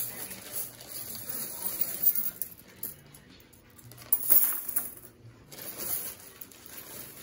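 Small hard weights dropped one by one into a hanging plastic bucket, landing with several sharp clinks a second or two apart, the loudest about halfway through, as a cardboard truss is loaded in a strength test.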